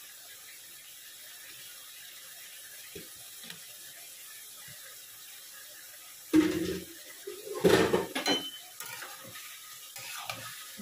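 Kitchen work sounds: a faint steady hiss with a couple of light knocks, then from about six seconds in loud clattering of a plastic colander and dishes at the sink with a brief run of tap water, followed by a spatula scraping in a wok.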